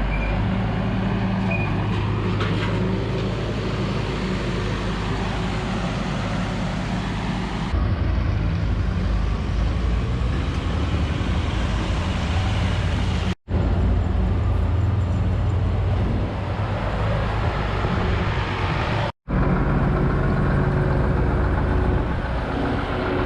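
Tractor and farm machinery running steadily, a constant low engine hum under a broad mechanical rush, cut off abruptly for an instant twice.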